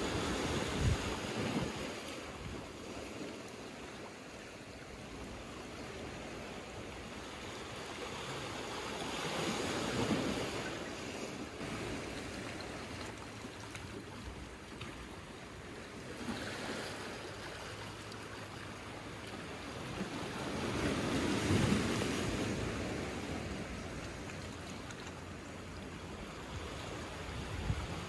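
Small sea waves washing in over rocks and a pebble shore, the surf swelling and easing in slow surges roughly every ten seconds.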